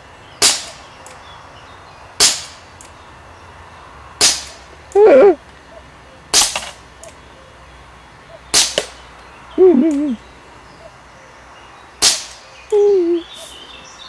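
Six single gunshots fired at a slow, even pace, about two seconds apart, with a longer pause before the last. Three short wavering cries are heard between the later shots.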